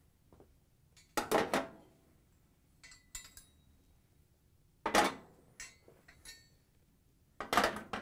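Metal burner grates on a gas range being set down on the cooktop one after another: three louder clattering set-downs with lighter metallic clinks between them as the grates are positioned.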